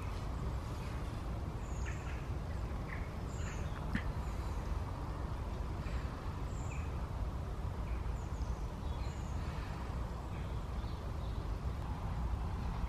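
Outdoor ambience: a steady low rumble with small birds chirping briefly and irregularly throughout.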